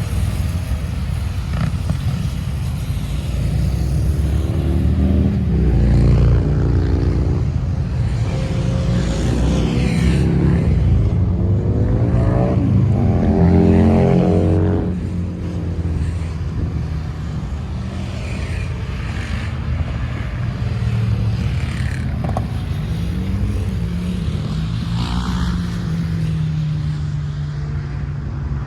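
Motor vehicle driving on a mountain road: steady low engine and road rumble, with the engine pitch climbing and falling several times as it revs through the gears, loudest around the middle before easing off.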